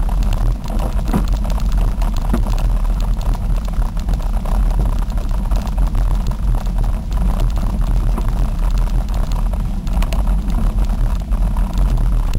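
Wind buffeting the microphone of a camera riding along a rough dirt trail, a loud steady deep rumble, with scattered rattles and knocks from the bumps of the track.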